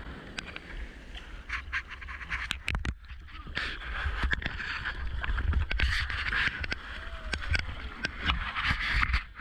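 Choppy backwash rushing and splashing around a whitewater kayak, with paddle strokes slapping the water and sharp crackles of spray hitting the camera. It gets louder about three and a half seconds in as the kayak is carried into the broken water.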